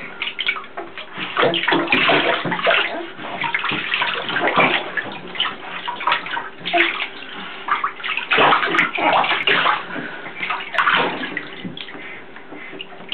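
Bath water splashing and sloshing in irregular bursts in a shallow tub as a baby kicks her legs, easing off near the end.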